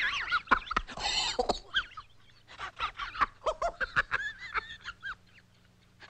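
Cartoon dog voice effects: a rapid run of short calls that swoop up and down in pitch, mixed with sharp clicks, thinning out to near silence in the last second.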